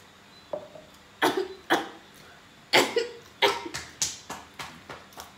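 A person coughing repeatedly, a series of about six sharp coughs starting about a second in.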